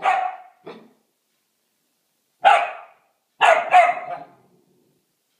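Belgian Shepherd Tervueren puppy barking. It gives a bark with a short, weaker one right after it, then another bark about two and a half seconds in, then two quick barks a second later.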